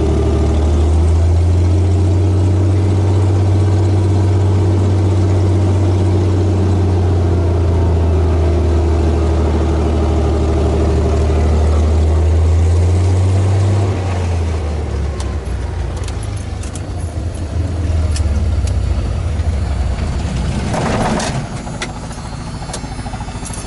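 Helio Courier's geared Lycoming GO-480 engine running with the propeller turning as the plane taxis, heard from a camera on the engine cowling close to the propeller. The steady low drone drops and turns uneven about fourteen seconds in.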